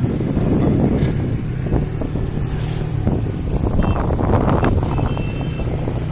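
Wind buffeting the microphone over a small motorcycle engine running steadily as the bike rides along.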